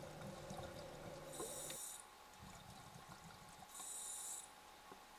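Faint scuba regulator breathing heard underwater: two short hissing inhalations about two seconds apart.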